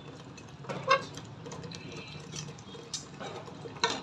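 Marinated chicken being added to a pot of gravy, with a few sharp knocks of a utensil against the pot over a steady low hum.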